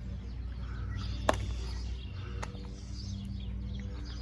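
Birds chirping over a steady low mechanical hum, with one sharp knock about a second in and a fainter one near the middle.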